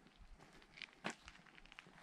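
Faint footsteps of a hiker walking on a trail, a few scattered steps with one sharper, louder step about a second in.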